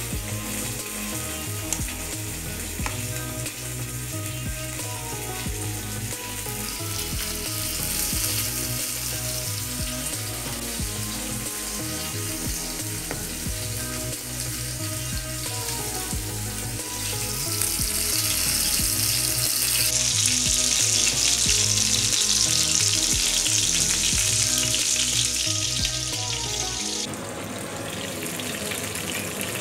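Rava-coated fish steaks sizzling as they shallow-fry in oil on a tawa, the sizzle growing louder in the second half and then dropping sharply near the end. Background music with a steady beat plays underneath.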